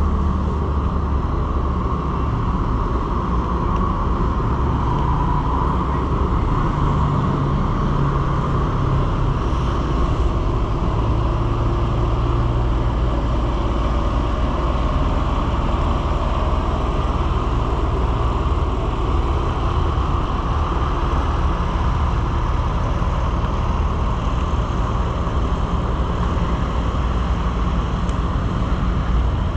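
Steady low rumble of motor-vehicle traffic, unbroken throughout.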